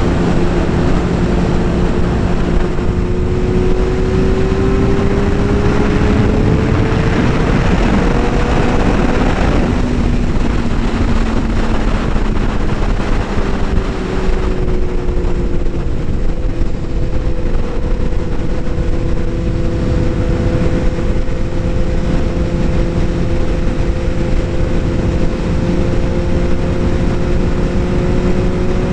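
Motorcycle engine running at cruising speed with heavy wind rush on the microphone. The engine pitch climbs slowly for a few seconds, drops about ten seconds in, then holds steady.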